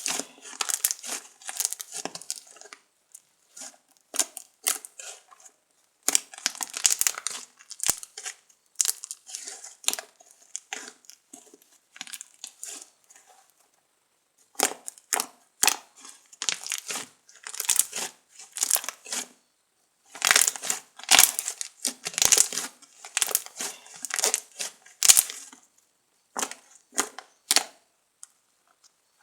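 Fluffy slime being squeezed and worked by hand, crackling and popping in irregular bursts with short pauses between.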